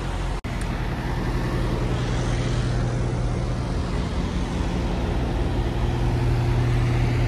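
Heavy diesel truck engine idling, a steady low hum with a constant tone, cut off for an instant about half a second in.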